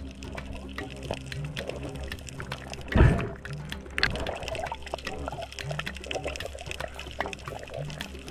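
Background music with a short low note repeating about every two seconds, laid over underwater sound: a constant crackle of small clicks and a loud rush of water about three seconds in.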